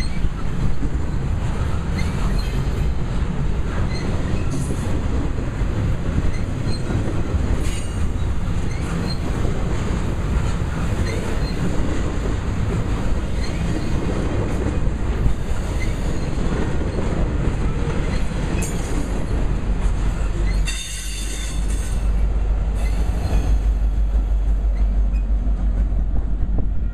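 Double-stack container train's well cars rolling past, a continuous rumble of steel wheels on the rails with short high wheel squeals. About 21 seconds in the noise dips briefly, then a deeper low rumble takes over as the end of the train goes by.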